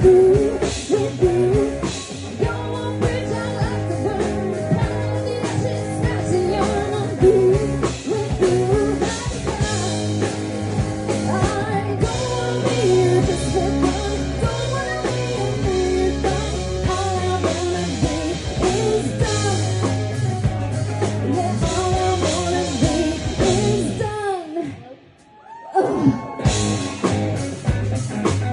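Live country band: a woman singing into a microphone over electric guitar and drum kit. About 24 seconds in, the band drops out for about two seconds, leaving a single falling note, then comes back in.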